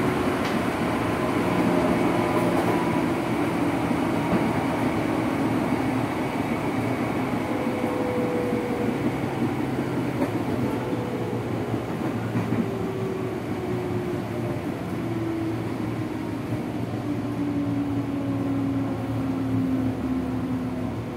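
Running sound inside a JR 205 series electric commuter train's motor car: a steady rumble of wheels and traction gear, with the traction motors' whine sliding slowly down in pitch as the train slows.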